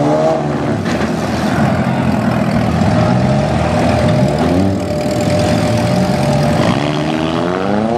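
Several four-cylinder demolition derby car engines running and revving together, rising in pitch as they rev near the start and again near the end. A single knock about a second in, and a thin steady whine from about three to seven seconds in.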